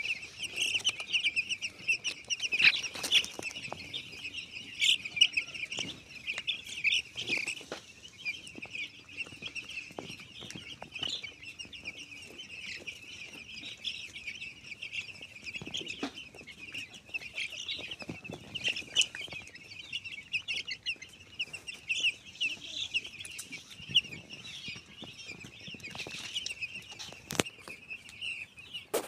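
A large flock of domestic chicks peeping continuously, many high chirps overlapping into a dense chorus, with a sharp click near the end.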